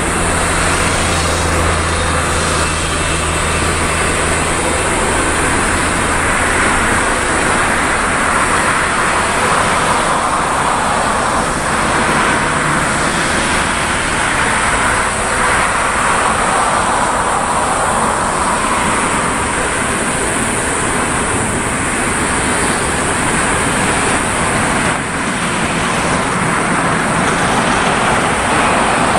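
Airbus A380's four Rolls-Royce Trent 900 turbofans at takeoff thrust: a loud, steady jet roar as the aircraft rolls down the runway and lifts off. A low hum underneath stops about seven seconds in.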